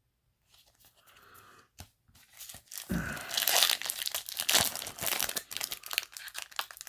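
Foil trading-card booster pack wrapper crinkling and crackling as it is handled and the cards are slid out. The rustle is faint at first, then turns loud and dense about three seconds in.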